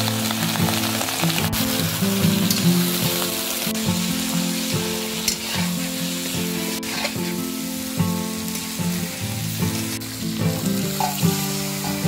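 Vegetables sizzling in hot oil in a metal wok, stirred with a steel spatula that scrapes and clicks against the pan a few times. Background music plays underneath.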